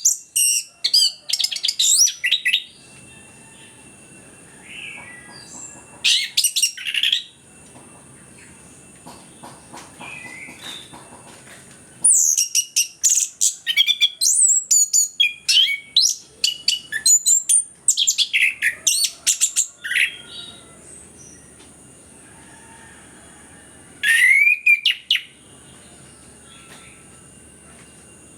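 Orange-headed thrush (anis kembang) singing in vigorous bursts of fast, varied, sweeping high notes. There are four bursts, the longest lasting about eight seconds, with pauses of a few seconds between them. A faint steady high-pitched tone runs underneath.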